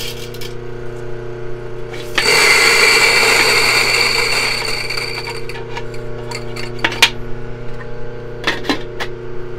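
Mahlkönig EK43 burr grinder's motor humming steadily. About two seconds in, a dose of coffee beans reaches the burrs and a loud grinding runs for about three seconds, then tapers off as the beans clear. A few sharp taps come near the end.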